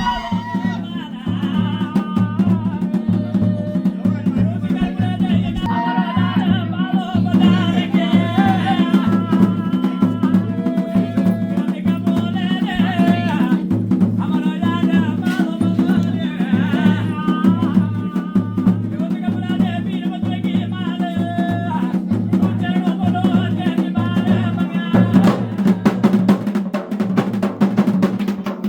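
Music: singing over a steady, regular drumbeat.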